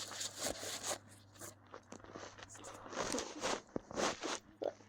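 Irregular crinkly rustling and scraping from small objects being handled, in many short bursts.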